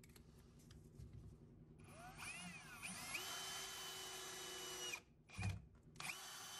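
Cordless drill run without load in two short bursts. About two seconds in, the motor whine wavers upward as the trigger is squeezed, then holds a steady pitch for about two seconds and stops. It starts again near the end and runs steadily.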